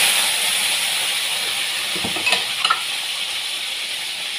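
Potatoes sizzling in hot oil in a wok just after being dropped in, a hiss that eases off slowly. A few small clicks come about two seconds in.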